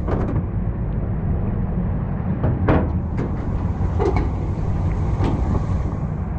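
Steady low rumble of a vehicle engine running, with a few scattered sharp clicks and knocks.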